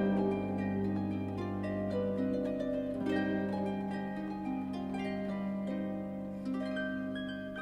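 Solo concert harp playing a flowing melody of plucked notes over sustained bass notes that ring on, the music easing off near the end.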